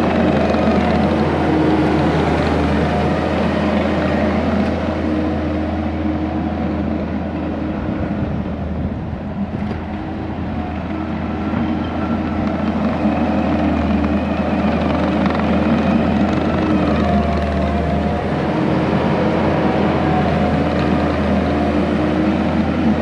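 Skid steer's diesel engine running hard and steadily as the machine digs dirt with its 4-in-1 bucket, the engine note dipping slightly partway through and then picking back up.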